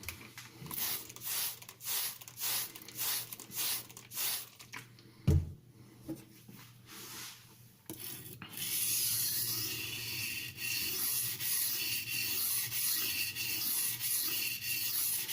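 Steel knife blade being stroked across a wet silicon carbide whetstone. It starts as short separate scraping strokes, with a single thump about five seconds in and a brief pause. From about eight seconds it becomes steady back-and-forth scraping at roughly two strokes a second.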